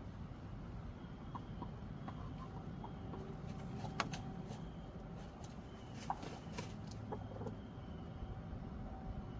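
Backyard chickens clucking softly now and then over a steady low rumble, with a few sharp clicks about four and six seconds in.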